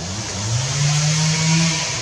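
An engine revving: a low hum rises in pitch about half a second in, holds steady, then drops away near the end, over a steady high hiss.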